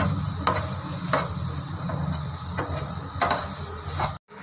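A spatula stirs and tosses rice and boiled vegetables on a hot tawa. A steady sizzle runs under about five short scrapes of the spatula against the pan. The sound cuts out for a moment just before the end.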